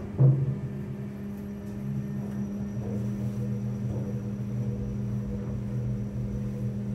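Kone MonoSpace passenger lift car travelling down between floors: a steady low hum from the car in motion, with one loud thump just after the start.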